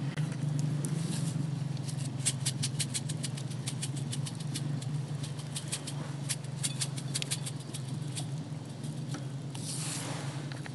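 Plastic spice shaker shaken over a bowl of food: a fast run of light rattling clicks, several a second, as the seeds are sprinkled out. A steady low hum runs underneath, and there is a brief rustle near the end.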